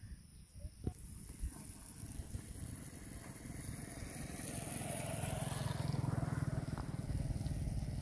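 A motor vehicle's engine, likely a motorcycle on the nearby road, approaching and getting steadily louder, at its loudest around six seconds in. A single short knock comes about a second in.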